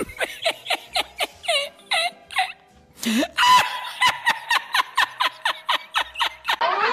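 A man laughing hard in rapid repeated bursts, several a second, breaking off briefly about midway and then going on.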